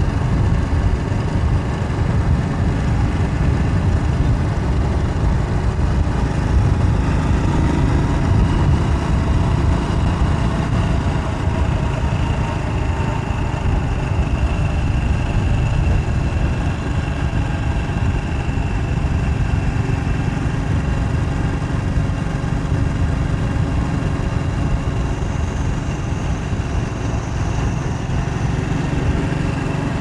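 Steady wind rush buffeting the microphone of a moving bicycle riding at about 30 km/h, heaviest in the low end.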